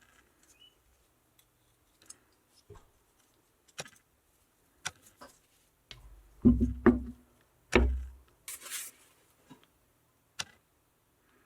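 Hand tools and small metal injection-pump parts being handled on a workbench: scattered light clicks and taps, with a few heavier knocks around six to eight seconds in and a short hiss just after them.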